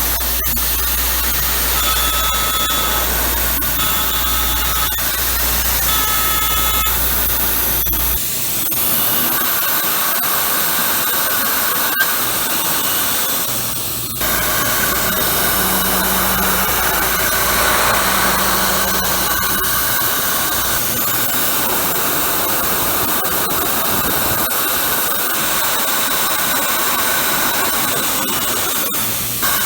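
Tormach PCNC 770 CNC mill machining aluminum: a loud, steady hiss with faint pitched tones over it from the running spindle and cutter. The sound shifts in character about eight seconds in and again around fourteen seconds.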